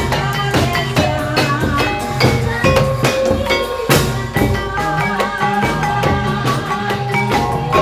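Live music from an incling troupe's ensemble: drums strike a steady beat under several pitched melodic instruments.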